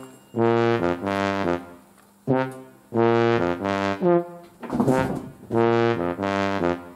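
Background music: a brass tune played in three short phrases of notes with brief gaps between them.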